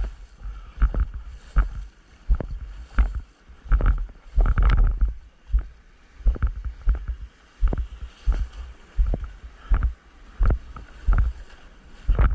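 Surfer paddling through the water: hand strokes splash and slap about every half to three-quarters of a second over a constant churn of water.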